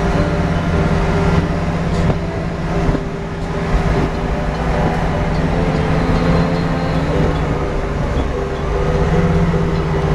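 Car engine running under way with steady tyre and road noise, heard from inside the cabin. The engine note holds steady, then dips and picks up again about eight to nine seconds in.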